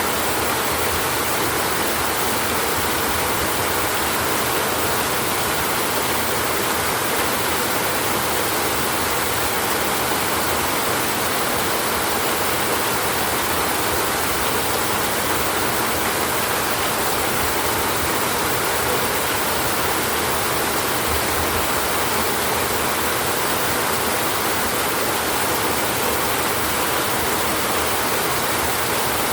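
Steady heavy rain drumming on a tin roof, a dense even hiss with no let-up.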